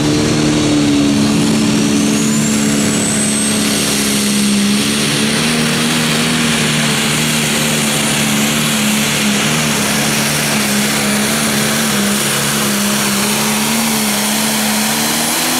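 Pro Stock pulling tractor's turbocharged diesel engine held at full throttle through a pull, a steady engine note with a high turbo whine that climbs over the first few seconds and then holds. The engine shuts off at the very end and the whine starts to fall away.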